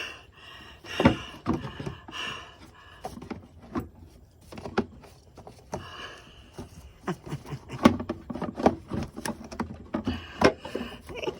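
Scattered clicks, taps and knocks of parts being handled and pushed into place on a car's intake manifold, with heavy breathing in between.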